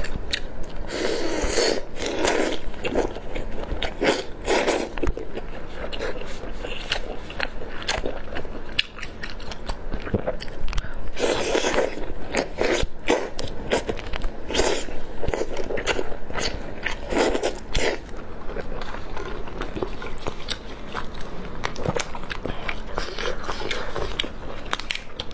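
Close-miked eating: biting and chewing skewered seafood dripping with spicy chili oil, with many sharp crunchy clicks.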